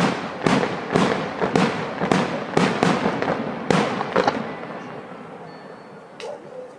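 Aerial fireworks shells bursting in a rapid series of sharp bangs, about two a second, each trailing off in an echo. After about four seconds the barrage thins out and fades, with one last small pop near the end.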